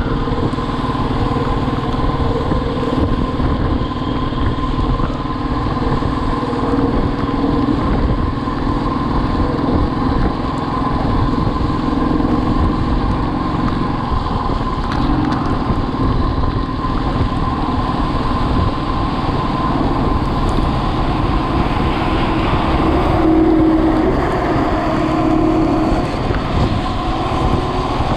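Motorcycle running steadily at road speed, its engine hum mixed with a steady rush of road and wind noise.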